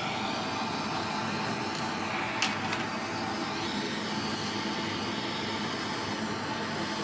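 Bernzomatic trigger-start torch burning with a steady hiss while its flame heats a copper pipe coupling for soldering. A single short click comes about two and a half seconds in.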